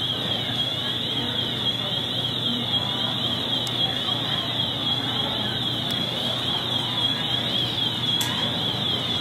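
A steady low hum with background noise, typical of an airliner cabin while taxiing. Over it runs a high-pitched warbling tone that sweeps up and down about once a second.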